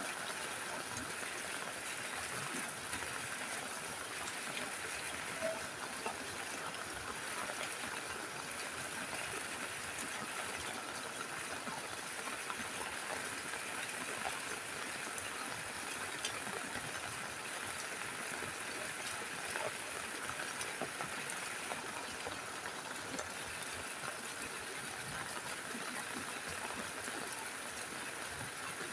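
Steady rain falling on a roof: an even hiss with many small drop ticks.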